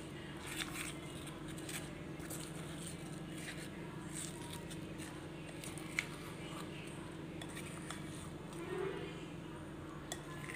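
A spoon stirring chopped fruit into a cream and curd mixture in a glass bowl, with a few sharp clinks of the spoon against the glass, the sharpest about six seconds in. A steady low hum runs underneath.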